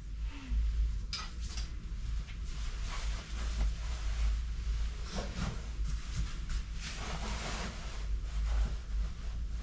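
Rustling of a down coat and backpack being put on and handled, with a few small knocks, over a steady low room hum.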